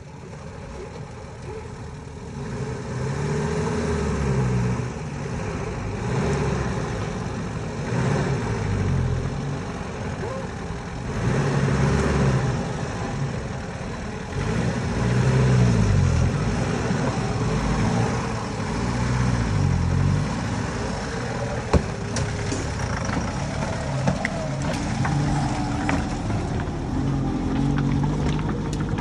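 Engines of old Zamyad (Iranian-built Nissan Junior) pickup trucks revving as they crawl through shallow river water over rocks, the engine pitch climbing and dropping again and again every couple of seconds.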